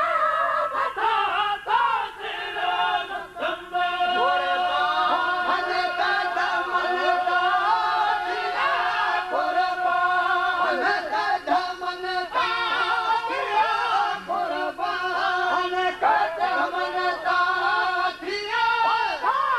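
A group of men singing a devotional mawlid chant together in chorus, voices only, with long held notes.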